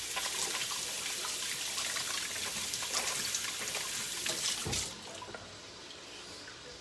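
Kitchen tap running into the sink while hands are washed under it, with uneven splashing. The water shuts off abruptly about five seconds in.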